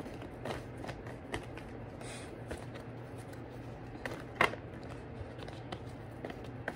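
Tarot cards being shuffled and handled: scattered light clicks and rustles, with one sharper snap about four and a half seconds in, over a faint steady low hum.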